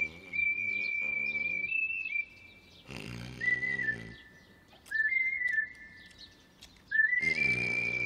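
A man snoring in comic style, each breath a low rattling snore carrying a high whistle that steps up or down in pitch. There are about four breaths, the longest at the start and near the end.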